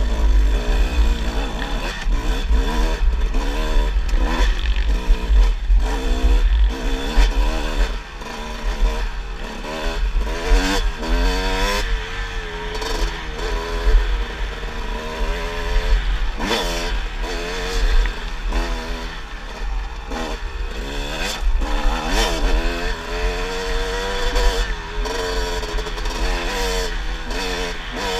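Kawasaki dirt bike engine heard from the rider's helmet, revving up and dropping back again and again as the throttle is worked, over a deep rumble of wind on the microphone.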